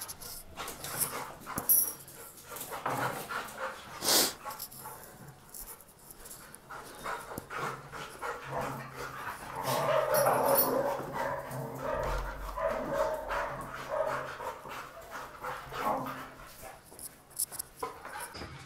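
Two dogs play-fighting, with dog vocal sounds and scuffling on a hard stone floor.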